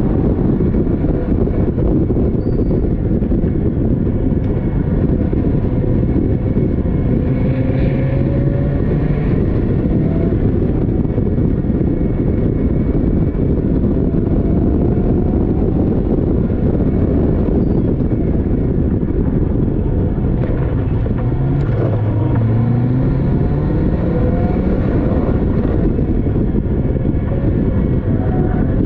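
Onboard sound of a Caterham Seven racing, with its open cockpit: the engine at full effort, its pitch rising under acceleration and dropping at gear changes several times, under heavy wind noise on the microphone.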